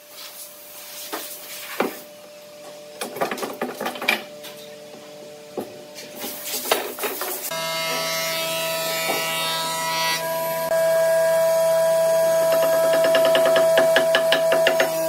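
Metal bar clamps being loosened and lifted off a glued pine chair frame, giving scattered clicks, knocks and rattles. About halfway through, background music comes in. Near the end there is a quick run of taps from a wooden mallet striking a chisel.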